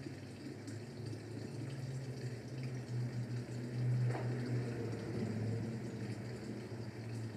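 Steady low hum with a faint rushing noise behind it, and a brief soft sound about four seconds in.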